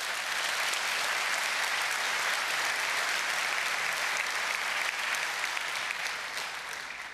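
A large audience applauding: dense clapping that swells at the start, holds steady, and tapers off near the end.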